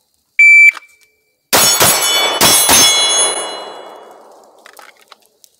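A shot timer gives one short high beep, and about a second later a handgun fires four shots in two quick pairs (two double taps). The hit steel targets clang and ring on, fading away over a couple of seconds.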